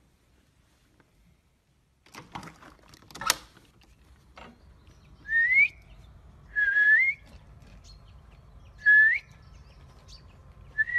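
A few clicks and a sharp knock, then a person whistling to call a cat: four short rising whistles, a second or two apart.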